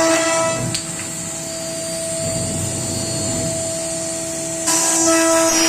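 CNC router spindle running with a steady high whine while its bit cuts wood, with a loud hiss over it. The hiss drops away less than a second in and comes back loud near the end.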